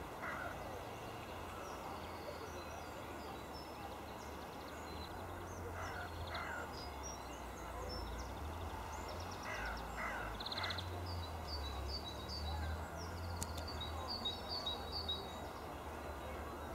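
Outdoor rural ambience: birds calling in many short, high chirps, busiest in the second half, with a few lower calls, over a steady low rumble.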